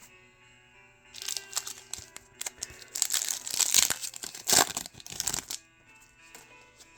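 Foil Pokémon card booster pack wrapper being torn open and crinkled by hand, a dense crackling rustle from about a second in that stops about five and a half seconds in.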